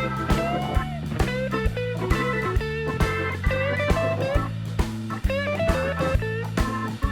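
Background music: a bluesy electric guitar playing bending lead notes over a bass line and a steady drum beat.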